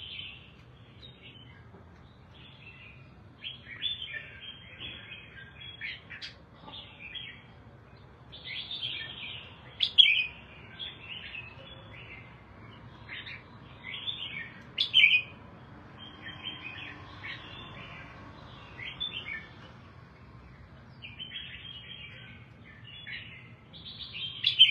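Red-whiskered bulbul singing: short, chirpy warbled phrases one after another, with a few sharper, louder notes about ten and fifteen seconds in and again near the end.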